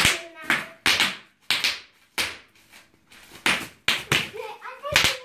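Bubble wrap popping under a child's bare feet and hands: a run of loud, sharp pops at uneven spacing, roughly one or two a second.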